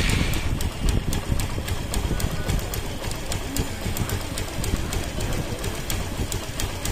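Suzuki Gixxer single-cylinder engine idling just after a cold morning start, with a fast clattering tick ("gat gat gat"). The idle is low, under 1000 rpm and hunting. The ticking comes from the decompressor at too low an idle, not from a worn valve adjuster or slipped timing.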